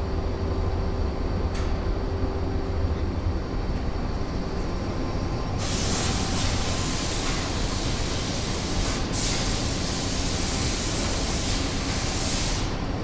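Metal-cutting lathe running with a steady low hum; about five and a half seconds in a loud hiss starts, breaks off briefly near nine seconds, and stops just before the end.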